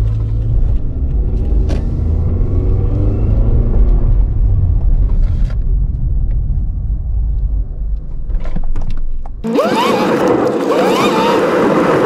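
Low rumble of a 2006 Toyota RAV4 under way, heard from inside the cabin, its engine note drifting slowly upward, on a test drive for a reported misfire while the engine is running smoother than expected. About nine and a half seconds in, the rumble cuts off abruptly and a different sound takes over, with a steady mid tone and gliding pitches.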